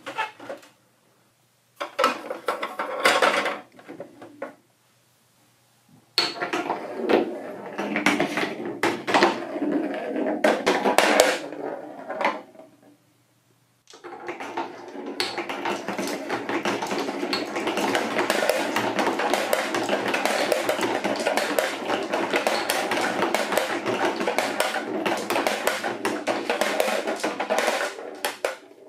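Marbles rolling and clicking down a Trix Track marble run in short bursts, split by brief silences. About halfway through, a dense, unbroken rattle of many marbles rolling along the track and dropping into a plastic toy dump truck's bed takes over.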